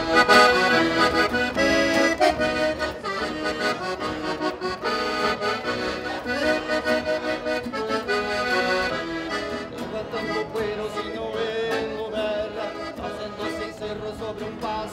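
Accordion playing traditional gaúcho dance music, with a steady beat.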